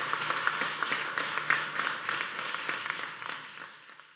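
Audience applauding, many hands clapping at once, fading out toward the end.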